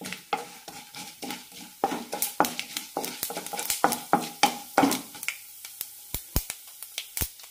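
A wooden spatula stirs mustard seeds and urad dal in hot oil in a nonstick kadai, making a repeated scraping for about five seconds before it stops. Sharp pops and sizzling run throughout as the mustard seeds crackle in the tempering.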